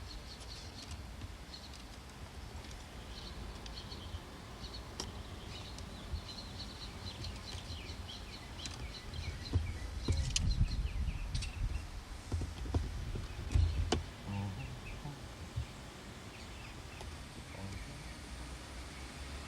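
Outdoor ambience with small birds chirping repeatedly over a steady background noise, and a louder patch of low rumbling with a few sharp knocks about halfway through.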